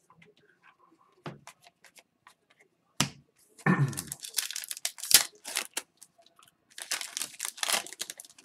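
Foil wrapper of an Upper Deck hockey card pack being torn open and crinkled by hand: a few light taps and a sharp click, then two spells of crackling tearing.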